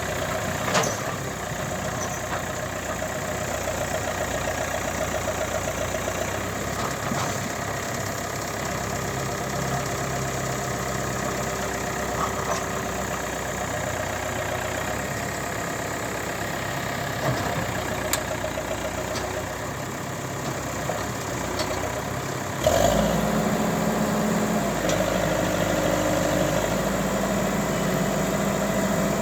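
Tractor's diesel engine running steadily, then getting suddenly louder about three-quarters of the way through as it picks up speed and load.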